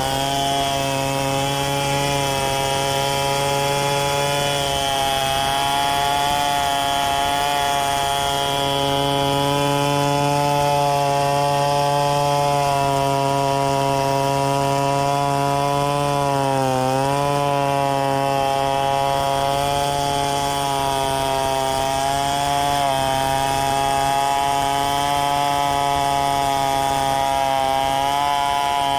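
Two-stroke Stihl chainsaw running at high revs while cutting through gmelina wood, a steady high engine note that sags briefly under load about halfway through and again a few seconds later.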